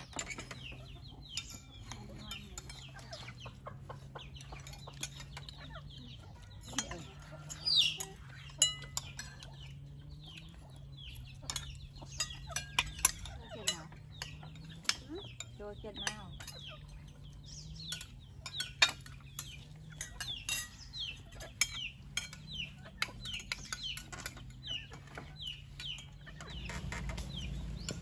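Chickens clucking and calling, many short high calls scattered throughout, with occasional light clinks of dishes over a low hum.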